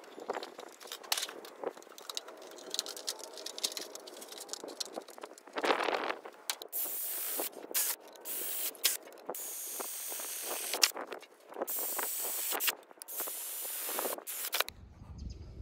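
Tin snips cutting thin sheet metal, a crackling snip-by-snip cutting sound, then a cordless drill boring a series of holes through the sheet, each hole a separate burst of high, hissing grinding about a second long.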